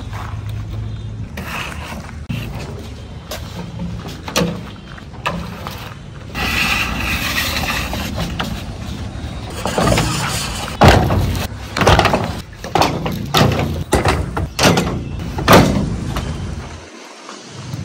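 Long plastic pipes being dragged over a steel tractor trolley's side and dropped onto the ground: a scraping slide, then a string of sharp knocks and clatters, loudest in the second half.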